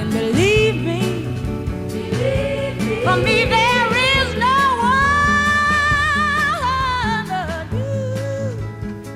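Soul song: a singer with vibrato and runs, holding one long high note about halfway through, over bass and band.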